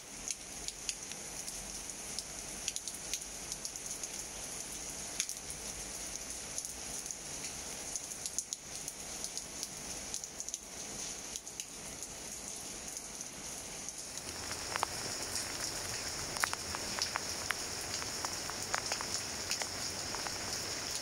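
Steady rain falling on leaves and plants, a constant hiss with scattered individual drops ticking. It grows a little louder and the drop ticks come more often about two-thirds of the way in.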